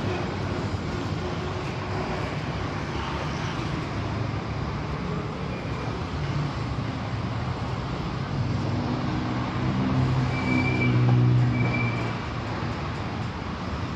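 Street traffic noise with a motor vehicle's engine running close by; the engine hum swells about two-thirds of the way through, then fades near the end.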